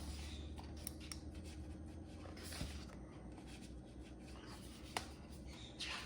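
Pages of a hardback book being turned by hand: faint paper rustling and swishing, with a few small clicks and a sharper one about five seconds in.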